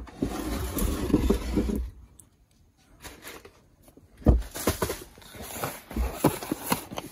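Cardboard shoe box being handled and opened: about two seconds of rustling and scraping, a pause, then from about four seconds in a series of sharp knocks and taps of cardboard with more rustling.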